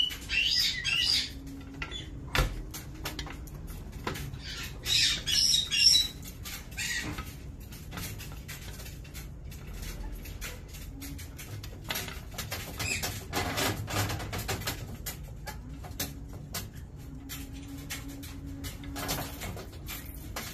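Caged Patagonian conures giving high, squeaky chirps in two short bouts of about a second each, amid many small clicks and scratches.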